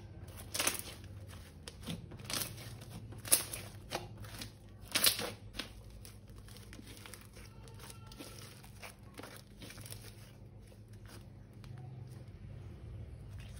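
Slime being squeezed and worked by hand, giving sharp crackles and pops, several loud ones in the first half, then fainter and sparser, dying away near the end.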